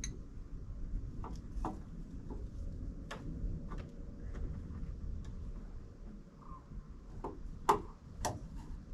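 Scattered knocks and taps from wooden framing being handled and moved, irregular and spaced out, with the two loudest knocks near the end.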